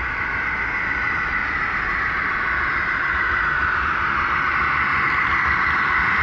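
OO gauge model Class 56 diesel locomotive hauling loaded MGR coal hoppers, its running noise on the track a steady whirr that grows slowly louder as the train approaches and passes.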